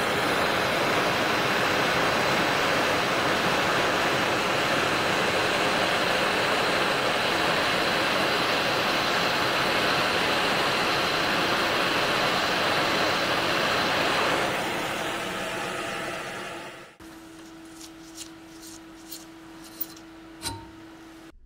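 Handheld gas blowtorch hissing steadily as its flame heats a rusted pin in the bayonet's steel handle to free it, dying away about fifteen seconds in. After that it is much quieter, with a few light metal clicks as pliers work at the pin.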